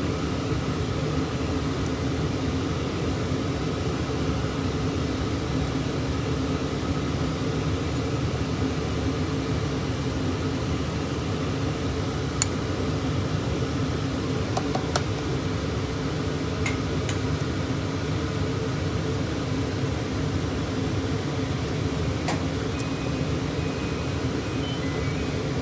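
Thermomix food processor running steadily while it cooks, a continuous motor and appliance hum with a low rumble, broken by a few faint clicks.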